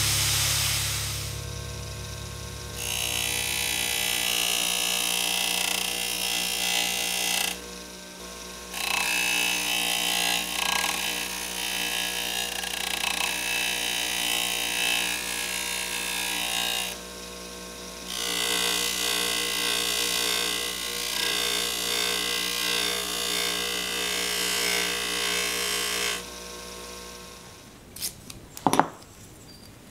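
Bench grinder running with a buffing wheel, a metal lathe part pressed against it in three long spells of hissing buffing, with only the steady motor hum in the short pauses between. The grinder winds down near the end, followed by a few sharp clicks.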